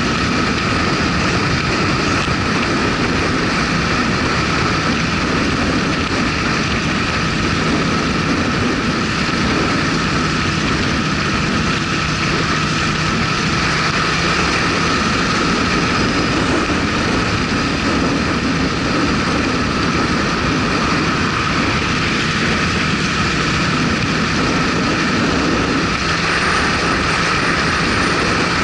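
Motorcycle cruising at a steady speed: engine and rushing wind, even and unchanging throughout.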